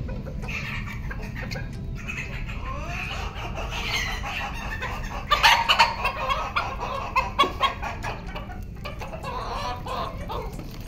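Bantam chickens clucking and calling, with a run of loud, sharp clucks about halfway through.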